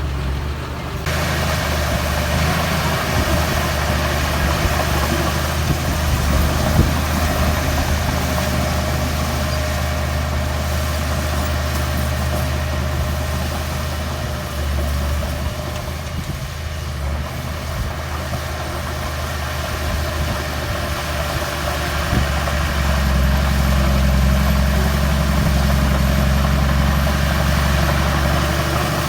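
Heavy diesel earthmoving machinery running steadily with a continuous engine hum, growing louder for the last several seconds.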